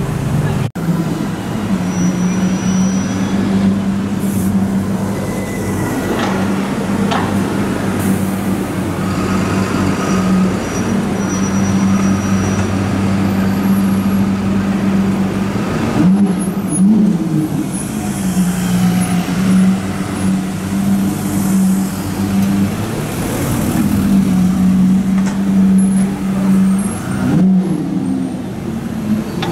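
Slow city traffic: car and bus engines idling and creeping along, with a steady low engine drone. The sound breaks off and changes abruptly a few times.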